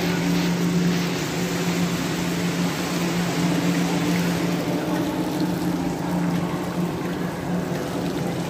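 Indoor fountain jets splashing steadily into a shallow pool, with a low steady hum underneath.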